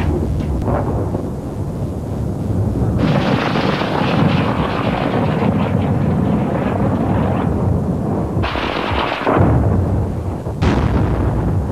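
Gunfire and shell blasts from an artillery bombardment over a constant low rumble. A long stretch of rapid cracking starts about three seconds in, another burst near nine seconds cuts off suddenly, and a sharp blast comes near the end.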